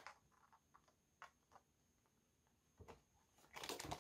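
Quiet paper handling: a few faint ticks, then a short rustle near the end as a folded leaflet and a card are shuffled in the hands.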